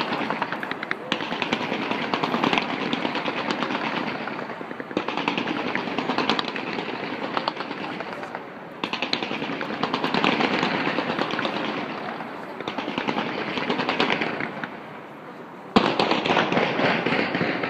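Fireworks going off in a dense, rapid crackle of many small reports, like machine-gun fire. The crackle comes in waves that swell and fade, and a new volley starts sharply near the end.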